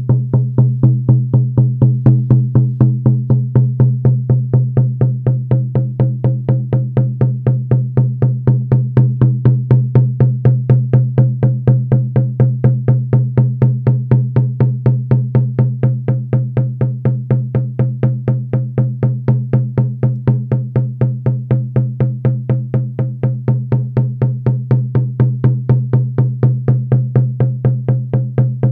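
Shamanic frame drum beaten in a steady, even, unchanging beat, its low tone ringing on between the strokes: the monotonous drumming that carries a shamanic journey.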